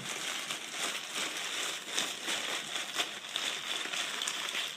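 A sheet of newspaper being crumpled and crinkled, a continuous crackle of many small irregular crackles, used as a Foley imitation of a crackling fire.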